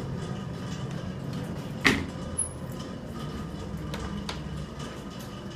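Montgomery elevator car: a steady low hum, with a sharp knock about two seconds in and two light clicks of a car-call button being pressed about four seconds in.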